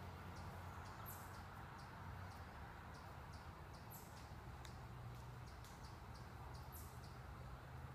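Faint outdoor ambience: short, high-pitched chirps repeat about every three seconds over a steady low hum.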